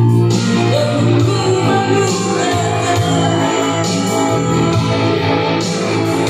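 A man singing karaoke into a microphone over a music backing track.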